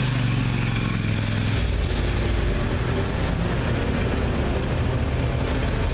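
Engine of a tourist road train running as it drives through city streets, with traffic around it; the engine note drops lower about a second and a half in.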